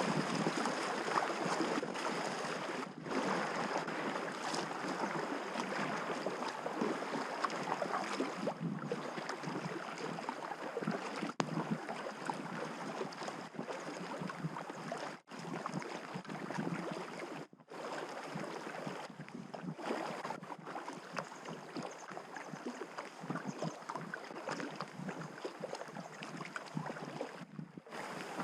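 Steady rushing and splashing of river water around a packraft on the move, broken by a few brief sudden gaps.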